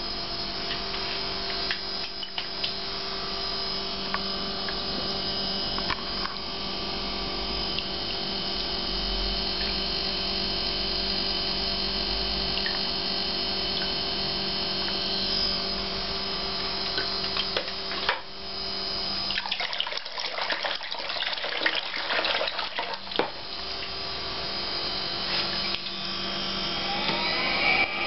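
Eberspächer Hydronic D5WZ diesel water heater running on a test bench: a steady motor whir and hum with several held tones. About two-thirds of the way through comes a spell of crackling and rapid ticking, and near the end a whine starts rising in pitch.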